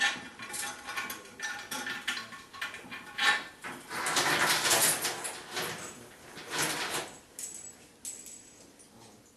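Toilet tank bolts, washers and nuts clinking and rattling as they are handled, with a longer rubbing noise about four to five seconds in.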